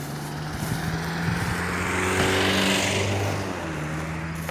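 A motor vehicle passing by: engine and tyre noise swell to a peak about halfway through, then fade.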